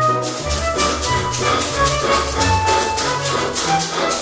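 Instrumental background music: a quick, steady percussion beat over a moving bass line and held melody notes.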